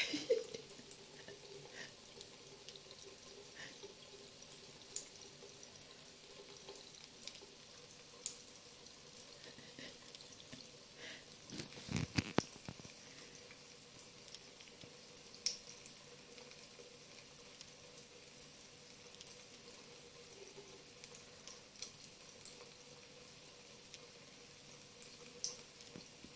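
Water running thinly from a tap into a sink, with scattered faint drips and clicks and a brief louder knocking about halfway through.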